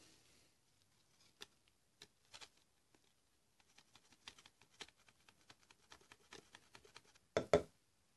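Faint scattered clicks and light taps of gloved hands handling a plastic LED light bulb and a folded sheet of paper, with two louder clicks close together near the end.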